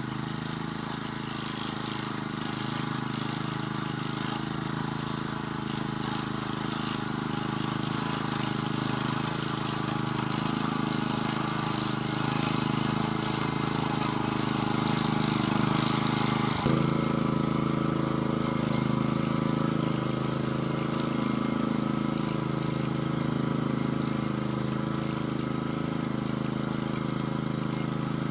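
Vari two-wheel walk-behind tractor engine running steadily under load while pulling a tine cultivator through the soil. It is loudest around the middle as the machine comes near, then fades as it heads away, with one sudden click about two-thirds of the way through.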